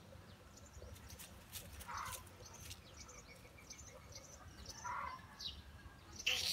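A tabby cat meows twice, briefly, about two and five seconds in, over faint small-bird chirping and light rustling of dry leaves.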